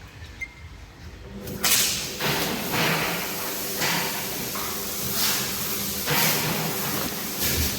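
A high-pressure sprayer starts up about a second and a half in: a steady motor hum under a loud, continuous hiss of spraying water that swells and fades as the jet moves across surfaces.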